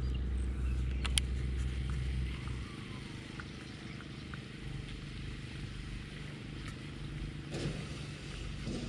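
Steady low motor hum, heavier for the first couple of seconds and then lighter, with two sharp clicks about a second in.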